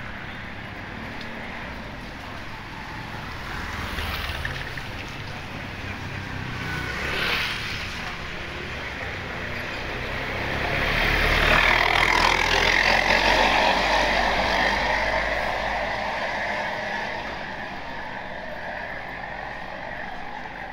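Street noise with a motor vehicle passing close by. The sound builds to its loudest a little past the middle, then fades away.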